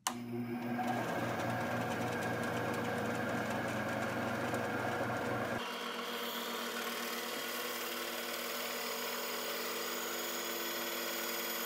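9-inch benchtop band saw running steadily as plywood is fed into its blade. The sound changes abruptly about halfway through, losing its low hum and shifting to higher steady tones, then cuts off sharply at the end.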